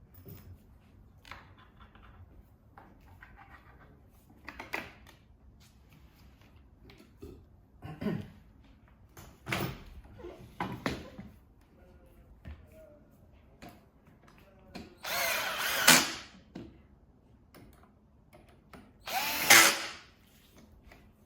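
Power drill driving screws into the bed's boards, two bursts of about a second each in the second half. Before them come scattered knocks and clicks of the wooden pieces being handled.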